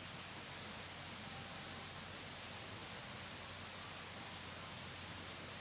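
Steady chorus of insects: an even, high-pitched drone that holds constant throughout.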